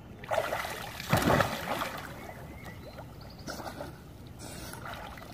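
Pool water splashing as a toddler goes into it, loudest about a second in, then light sloshing and lapping as he paddles.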